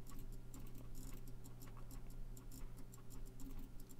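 Faint, irregular clicking of a computer mouse and keyboard, some clicks in quick runs, over a low steady hum.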